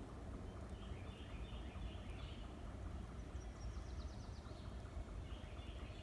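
Wild birds calling over a steady low rumble, with a short rapid trill about midway.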